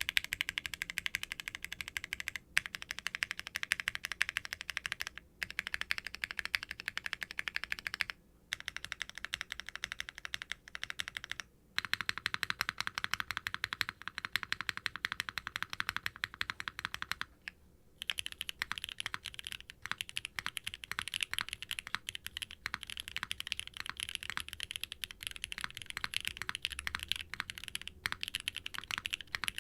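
Fast typing on a Qwertykeys Neo80 Cu mechanical keyboard (aluminum case and aluminum plate, no sound dampening) fitted with NovelKeys Classic Blue linear switches and GMK double-shot ABS keycaps: dense runs of key clacks with a few short pauses, turning brighter and sharper in the last third.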